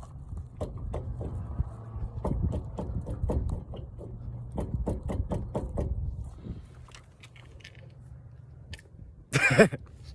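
Raised car wheel being rocked by hand, clicking and clunking over and over as it shifts: the play of a bad wheel bearing. The knocking stops about six and a half seconds in, and one brief loud noise comes near the end.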